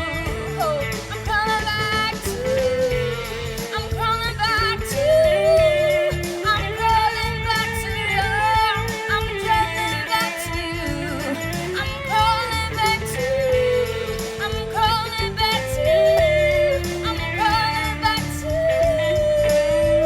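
A woman singing a slow melody with wavering, held notes over guitar accompaniment.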